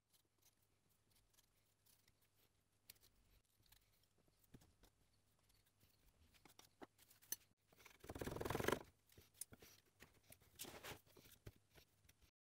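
Near silence with faint ticks and clicks, and one short scrape about two-thirds of the way in: a putty knife working wood filler into screw pocket holes on plywood.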